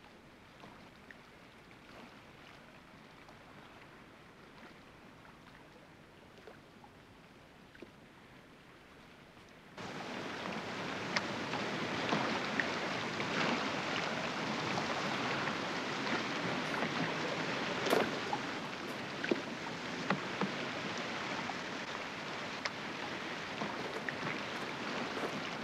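Faint room tone for the first ten seconds, then a sudden change to steady outdoor noise of water and wind at a shoreline, with scattered sharp clicks, as a small rowing boat is rowed past.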